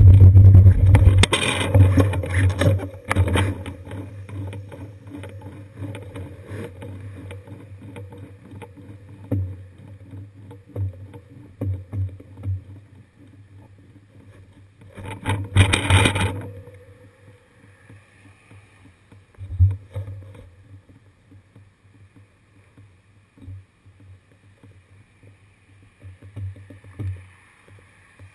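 Wind and road rumble on a bicycle-mounted camera, loud at first and dying away over the first few seconds as the bike comes to a stop. Then low, quieter traffic noise from cars waiting behind, with a brief loud rush just past halfway and a few softer bumps.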